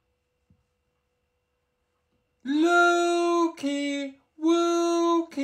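Near silence for about two and a half seconds, then a man's voice singing three long held notes in a drawn-out, sing-song way, with a fourth starting at the very end.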